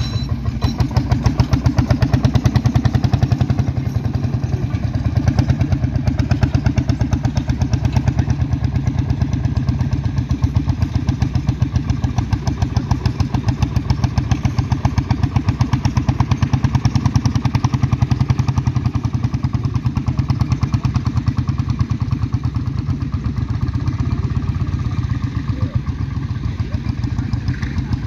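Lanz Bulldog tractor's single-cylinder two-stroke hot-bulb engine pulling a plough under load, firing in a fast, even beat of exhaust pops.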